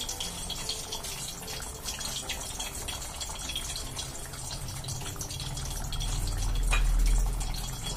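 Thick curry simmering in a steel pot, bubbling with small soft pops. A low rumble swells near the end and is the loudest part.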